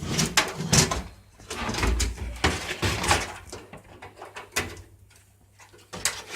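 Computer cables and their plugs being handled and pushed into the sockets on the back of a desktop PC: irregular clicks, knocks and light thuds.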